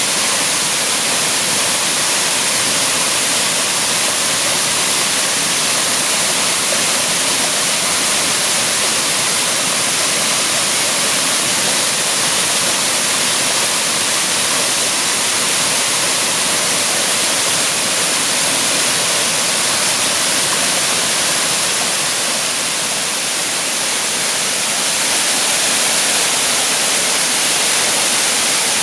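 Waterfall pouring steadily: a loud, even rush of falling water, strongest in the high hiss.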